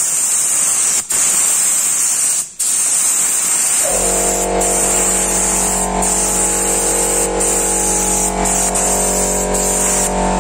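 Compressed-air spray gun hissing as it sprays thinned epoxy primer through a 1.7 mm nozzle, with short breaks where the trigger is let off, once at the start and again about two and a half seconds in; the hiss stops near the end. About four seconds in, a motor starts up and runs with a steady hum under the hiss: the air compressor cutting in.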